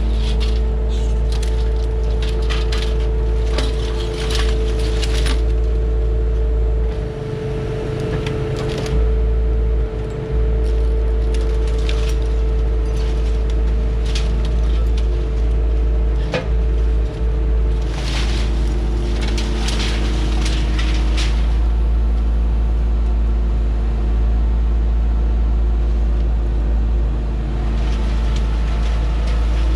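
Skid steer loader's engine running steadily under load, with bursts of sharp cracking and crunching in the first few seconds, again about eight seconds in, and between about eighteen and twenty-one seconds.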